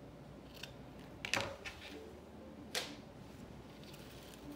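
Scissors snipping through pom-pom trim: a few short, sharp snips, the loudest a little over a second in.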